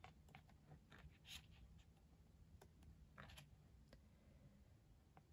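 Near silence with a few faint rustles and soft taps of photo-book pages being handled and turned.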